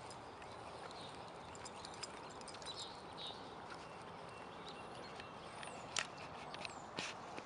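Light footsteps and small clicks during a walk with a small dog on a leash, over a steady outdoor hiss, with a few sharper clicks about six and seven seconds in.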